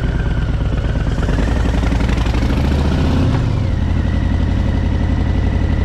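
Harley-Davidson Fat Boy's V-twin engine running as the motorcycle rides, its note rising and then dropping about three seconds in.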